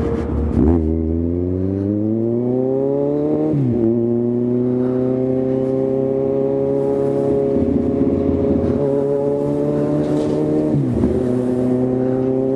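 Kawasaki Z1000 inline-four motorcycle engine accelerating through the gears. Its pitch climbs as it pulls and drops sharply at each upshift: about half a second in, again a little after three seconds, and near the end.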